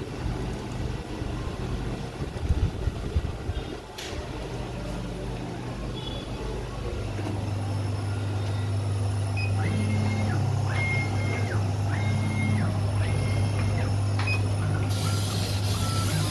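Laser cutting machine running: a steady low hum, with the laser head's motors whining through four short moves, each rising, holding and falling in pitch. Near the end a strong hiss starts as the cut begins.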